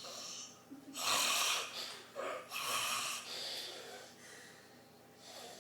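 A man snoring heavily while passed out drunk. There are two loud breaths about a second and a half apart, with shorter, quieter breaths around them.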